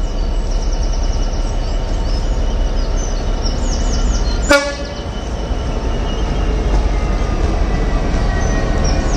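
Class 66 diesel locomotive's two-stroke V12 engine running as it approaches with a rake of engineering wagons, a steady low rumble that grows slightly louder. About halfway through, the horn gives a very short toot. Birds chirp high above the rumble throughout.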